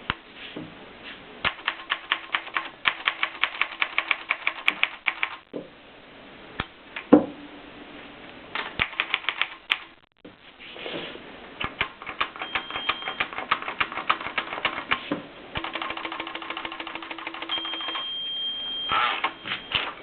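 Klein Adler manual typewriter being typed on: runs of rapid key strikes broken by short pauses, with one louder thump about seven seconds in.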